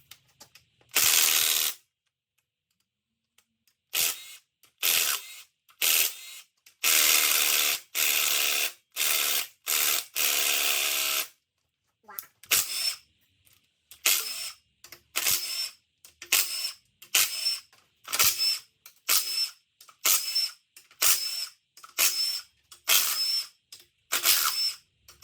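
Hand and power tools loosening bolts on a GM LQ9 6.0 L V8 during teardown. A few longer runs of a tool come in the first half, then a ratchet is worked in short, even strokes, about one and a half per second.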